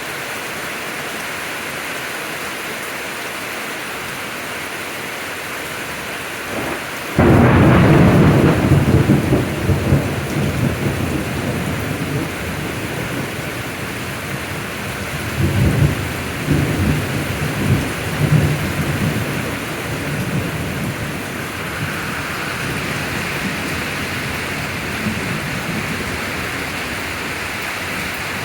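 Steady rain falling through a thunderstorm. A sudden loud thunderclap comes about seven seconds in and rolls on as rumbling, and a second, weaker bout of rumbling follows about halfway through.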